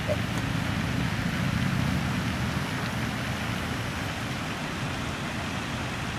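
Steady rushing outdoor background noise with a low rumble, a little louder between about one and two seconds in.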